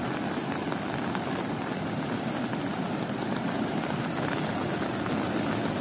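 Muddy floodwater rushing across a submerged road: a steady, even rushing noise.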